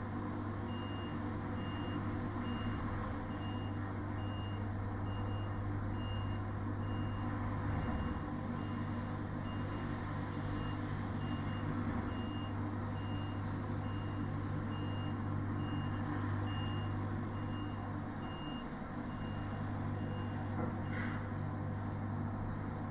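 Lorry diesel engine and trailer refrigeration unit running with a steady low hum. Over it, a reversing alarm beeps regularly, about three beeps every two seconds, and stops near the end. A short sharp noise follows.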